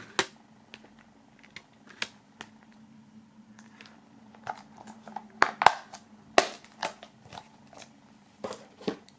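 Clear plastic DVD cases and discs being handled: scattered light clicks and taps, with a cluster of louder clicks past the middle and a few more near the end, over a faint steady hum.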